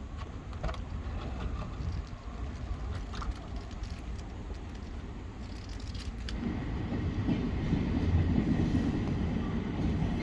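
A passing train rumbling on its rails, growing clearly louder about six seconds in, over a low background rumble with a few sharp clicks.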